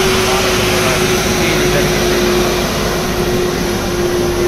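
Diesel engine of a loaded twelve-wheel truck pulling hard up a grade as it passes close by, with a steady whine running over the engine noise.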